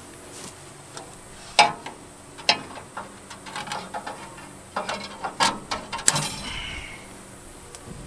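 Steel baling wire being cut with diagonal wire cutters: a loud snip about one and a half seconds in, another about a second later, then a run of smaller metallic clicks and clinks as the wire is worked against the baler's steel chute.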